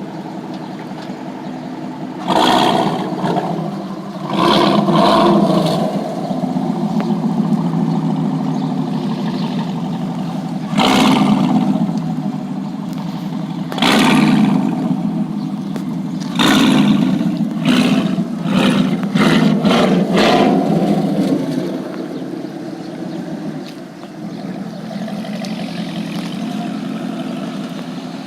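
2017 Camaro SS's 6.2-litre V8 through a Borla ATAK exhaust, idling with a series of sharp throttle blips, the last several about once a second.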